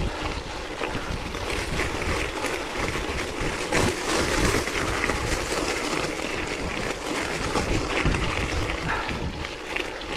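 Wind buffeting the microphone of a rider's camera on a mountain bike, over the hiss of tyres on a wet, muddy trail. The bike rattles and knocks many times over rough ground.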